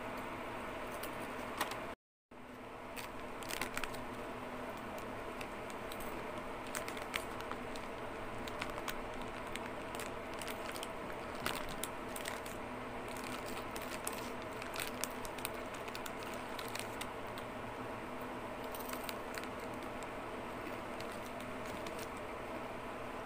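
Plastic snack-chip bag crinkling as it is handled, with scattered sharp crackles and crunches, over a steady background hum. The sound cuts out completely for a moment about two seconds in.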